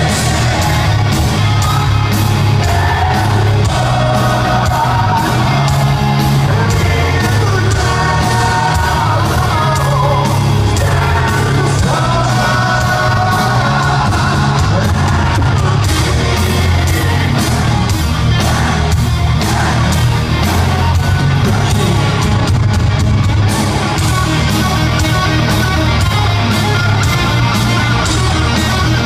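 Heavy metal band playing live in an arena: lead vocals sung over distorted guitars, heavy bass and dense drumming, loud and steady, heard from out in the hall.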